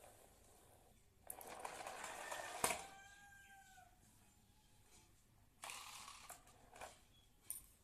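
Plastic toy carts rolling and scraping over a tile floor in two short spells, with a sharp click in the middle of the first and another near the end. A brief, faint, falling squeak follows the first click.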